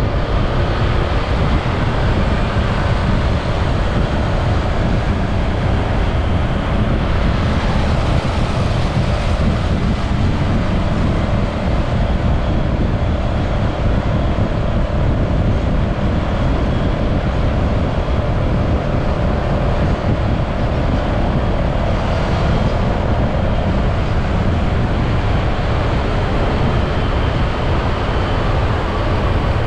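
Riding on a motorcycle taxi in city traffic: the motorcycle's engine running under a loud, steady rush of road and wind noise, with faint steady engine tones.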